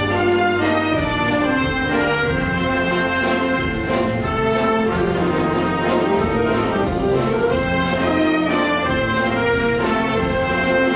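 Concert wind band playing live, with clarinets and saxophones over brass and tubas, at a steady loudness.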